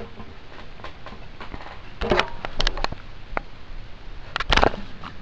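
Handling noise from a small plastic LEGO model being moved and set down on a blanket: a cluster of sharp clicks and rustles about two seconds in, and a louder short cluster about four and a half seconds in, over a steady hiss.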